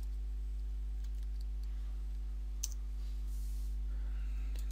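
A few faint computer keyboard keystrokes over a steady low hum.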